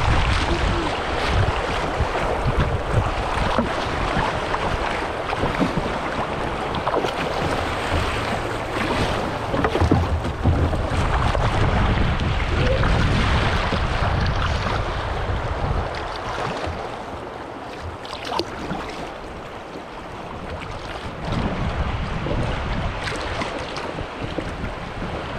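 River water rushing and splashing through riffles around a kayak's hull, with wind buffeting the microphone. The water noise eases for a few seconds a little past halfway, then picks up again.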